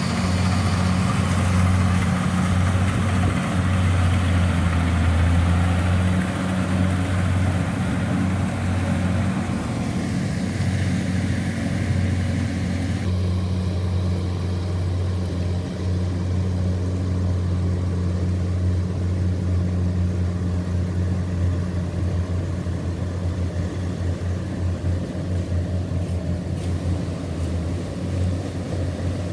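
Rice combine harvester engine running steadily under load, a continuous low hum. About 13 seconds in the higher, hissy part of the sound drops away and it turns duller.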